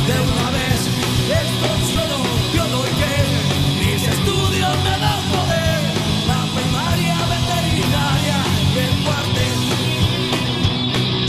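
Punk rock band playing live: electric guitars, bass and drums.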